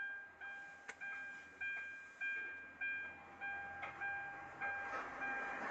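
An electronic beep repeats steadily, a little under two times a second. Each beep is one pitch that fades, over a faint low hum.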